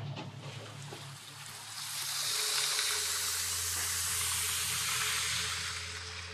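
Fizzing, crackling hiss of melting glacier ice releasing trapped air bubbles, heard underwater through a hydrophone. It swells in about two seconds in and fades near the end, over a steady low hum.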